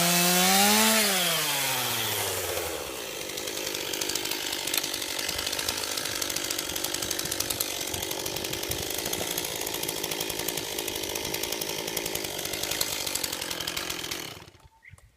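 Chainsaw engine running at high revs, its pitch rising briefly about a second in and then falling away as the revs drop. It then runs on with a rough, rattling sound for about ten seconds before stopping abruptly near the end.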